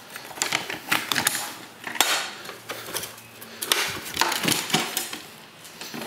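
Metal ammunition box being handled and opened: a run of sharp metallic clicks and clanks from its latch and lid.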